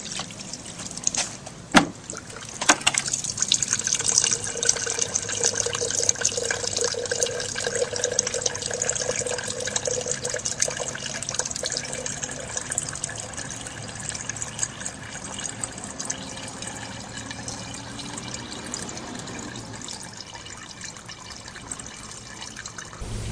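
Oily water poured from a plastic bucket onto hydrophilic filter fabric and draining through it, trickling into a glass jar below. A few knocks come as the pour starts, then a steady flow that thins toward the end.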